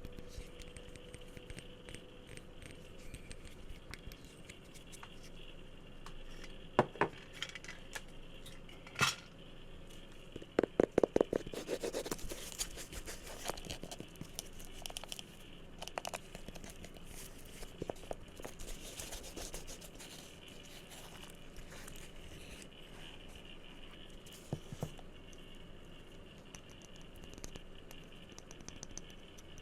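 Assorted objects being tapped and handled by hand at close range: scattered taps and clicks with light scratching and rustling between, and a quick run of taps about ten seconds in.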